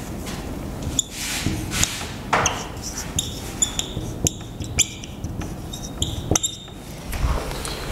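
A hand rubbing across a whiteboard, then a marker writing on it: short squeaks and taps as the letters are drawn.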